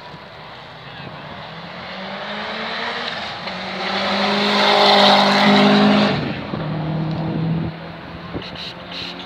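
A rallycross car passing close by at speed. Its engine note builds over several seconds and is loudest about five seconds in, then drops in pitch and fades as it goes away.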